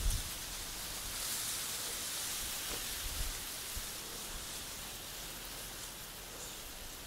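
Steady high hiss of open-air ambience, wind rustling through dry reeds, with a faint low bump at the very start.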